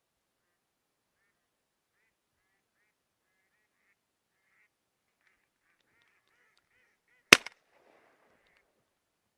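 Live decoy ducks quacking faintly in a series that quickens, then a single shotgun shot about seven seconds in, by far the loudest sound, followed by a short echo.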